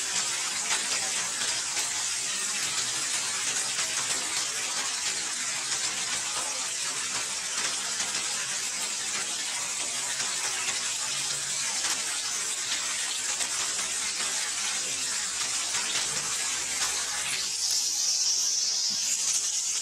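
Heavy rain falling steadily, an even dense hiss of rainfall. About two seconds before the end the hiss thins and turns higher.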